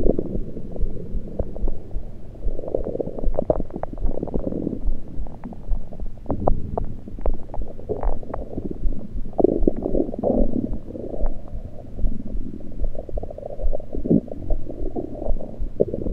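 Human stomach gurgling through an electronic stethoscope held to the belly: muffled, bubbly gurgles and rumbles that come and go in waves, with many small pops. It is liquid and air moving through the gut rather than digestion.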